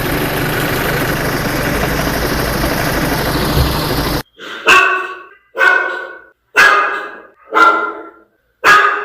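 A steady, noisy sound for about four seconds, then a toy dog's recorded bark sounding five times, about once a second.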